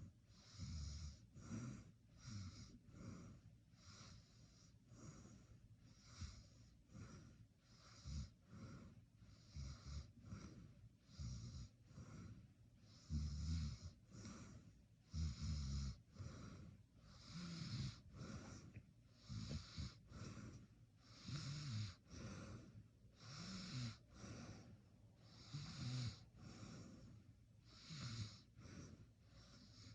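A person snoring in their sleep: a quick, uneven run of noisy breaths, with deeper snores that are loudest about halfway through.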